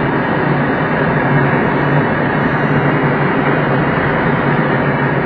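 Steady rush of airflow past a glider cockpit in flight, a constant wind noise with a faint low hum under it.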